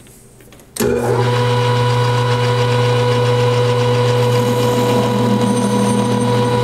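Metal lathe switched on about a second in, then running steadily with its chuck spinning: a steady low motor hum with a higher, even whine from the drive.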